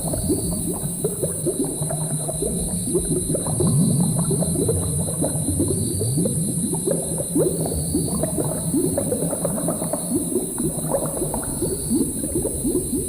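Thick liquid bubbling steadily in a cauldron, a dense run of small popping bubbles that rise in pitch, over a steady high hiss.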